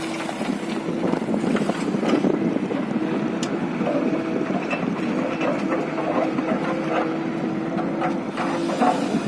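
Excavator's diesel engine running steadily, with scattered clicks and knocks.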